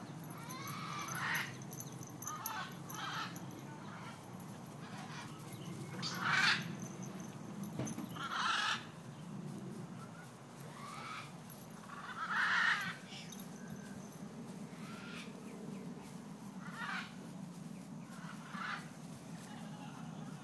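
Juvenile emus giving short, harsh calls, about ten in all, spaced irregularly a second or a few seconds apart, over a steady low hum.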